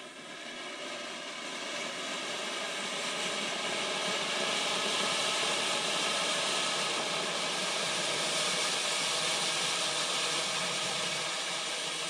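Several Funke Silbertürme, small F1 firework fountains, burning at once: a steady hiss of spraying sparks that grows over the first few seconds as more fountains catch, then eases a little near the end.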